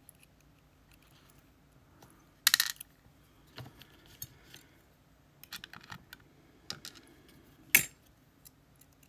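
Small metal clicks and clinks of lock pins, wafers and tools being handled while a GeGe pExtra+ lock cylinder is taken apart. They come in scattered little clusters, with the sharpest click near the end.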